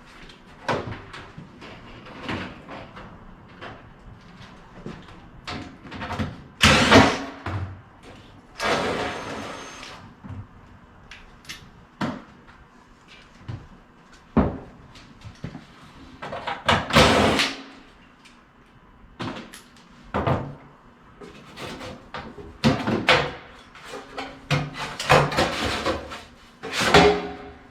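Irregular knocks, clanks and scrapes of sheet-metal furnace parts being handled and shifted, with several louder bangs and one scrape lasting about a second.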